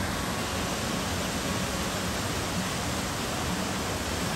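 Running water rushing steadily, an even unbroken hiss.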